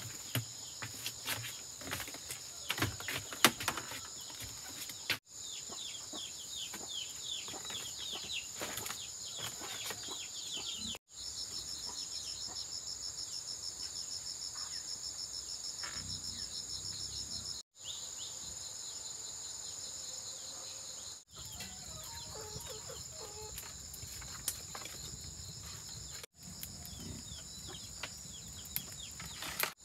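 Insects keeping up a steady high drone, with short bird calls over it. Sharp clicks and knocks come in the first few seconds. The sound drops out briefly five times.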